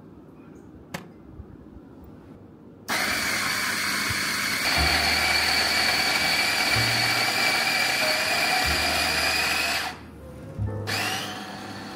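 Electric burr coffee grinder grinding coffee into a metal dosing cup: the motor starts abruptly about three seconds in, runs steadily with a high whine for about seven seconds and cuts off, then runs again briefly near the end.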